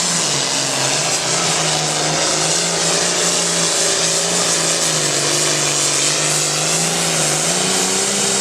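Hot farm class diesel pulling tractor at full throttle dragging the sled down the track: a loud, steady engine drone whose pitch sags slightly and then climbs near the end, dropping off sharply as the run finishes.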